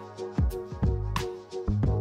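Outro music with drums playing a steady beat over held notes.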